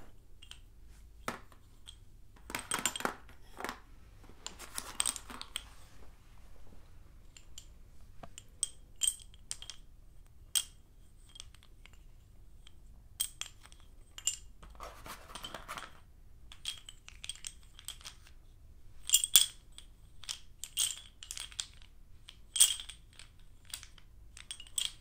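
Sticks of blackboard chalk clicking and clacking against each other as they are handled and stacked: many sharp, irregular clinks, with a few longer rattling shuffles of the bundle.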